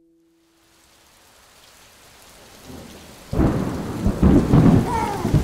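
Thunderstorm: rain hiss fades in out of near silence, then a loud crack of thunder hits a little over three seconds in and rolls on as heavy low rumble under the rain.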